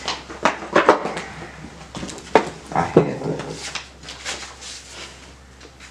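Loose sheets of paper rustling and crackling as they are handled and turned over close to a handheld microphone, in a string of sharp, irregular crackles that thin out near the end.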